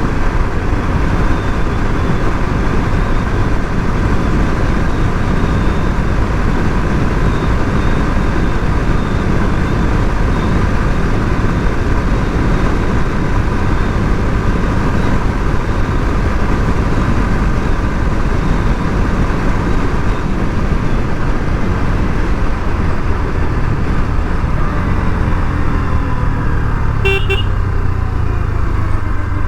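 Bajaj Pulsar RS 200's single-cylinder engine running steadily under way, heard from the riding position over a steady rush of wind and road noise. Near the end the engine note falls a little, and a short horn toot sounds.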